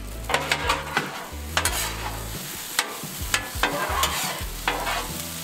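A flat metal bench scraper scraping and chopping fried rice on a steel flat-top griddle, in irregular sharp strokes over a frying sizzle.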